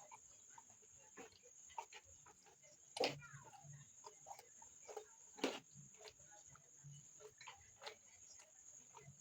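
Faint close-miked chewing and lip smacking of a person eating rice and beans, with scattered small clicks and two sharper clicks about three and five and a half seconds in. A steady high-pitched whine runs underneath.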